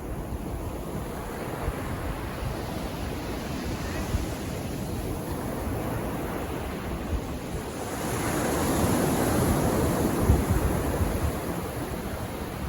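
Calm sea waves washing onto the beach, a steady rush of surf that swells louder for a few seconds about eight seconds in, then eases off.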